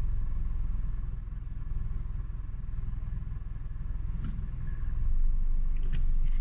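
Low, pulsing rumble heard inside the cabin of a Nissan Teana L33, the noise the owner reports when pulling away in the morning. Two sharp clicks come about four and six seconds in, and the rumble grows a little louder toward the end.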